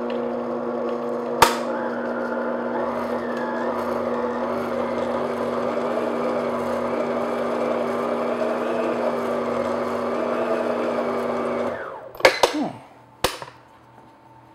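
Electric stand mixer running steadily with a steady hum, its paddle beating the last of the flour into a thick, heavy pound cake batter. There is one sharp click about a second and a half in. The motor stops about 12 seconds in, followed by a few sharp clicks and knocks.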